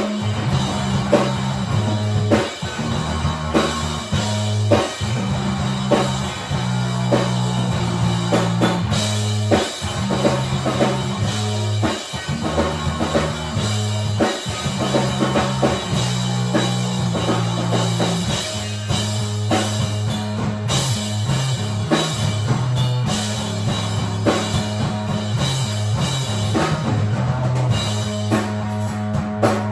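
Rock song demo: a band with drum kit, electric guitar and a bass line stepping between notes, playing at a steady beat.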